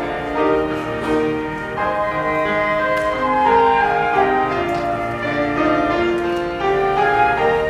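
Two flutes playing a slow hymn melody in harmony, held notes with vibrato, over a lower accompaniment.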